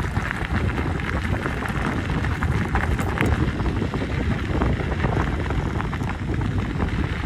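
Wind rushing over a handlebar-mounted microphone on a bicycle riding fast downhill, with the tyres rattling and crunching over a gravel path.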